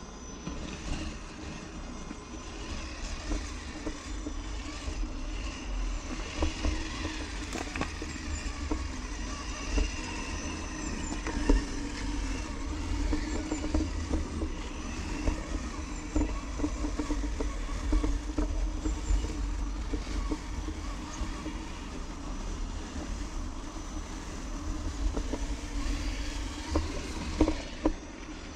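Traxxas TRX-4 RC crawler driving, its electric motor and drivetrain whining with changes in throttle, while the towed trailer rattles and knocks over rough ground, over a steady low rumble.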